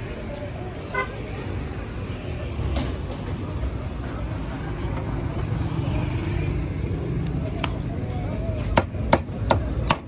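A long knife chopping steamed sheep's head meat on a wooden cutting board, with a few sharp chops near the end, over a steady rumble of street traffic. A brief car horn toot sounds about a second in.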